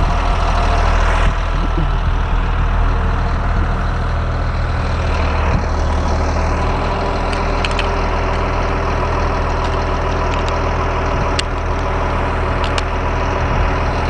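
Steady idle of the CAT C7 7.2-litre turbo diesel engine in a 2006 Blue Bird All American school bus.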